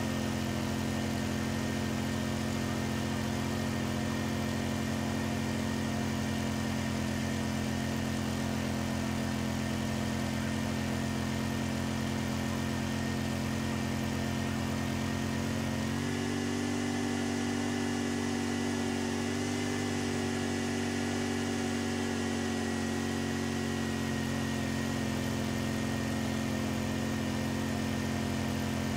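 Snowblower's gasoline engine running steadily under load while it throws snow out of its chute; the engine note shifts slightly about halfway through.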